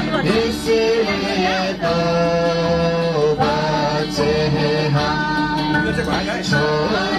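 Voices singing a children's action song to a musical accompaniment, in held notes that change about once a second.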